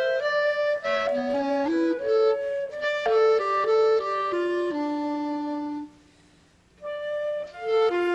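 Flute and clarinet playing a duet, two melodic lines moving together. The music breaks off for under a second about six seconds in, then the phrase picks up again.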